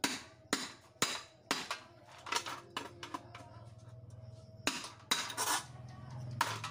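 Hammer blows on a tool held against the metal body of a rice cooker being broken down for scrap: sharp metallic strikes about twice a second, a pause near the middle, then a few more strikes near the end.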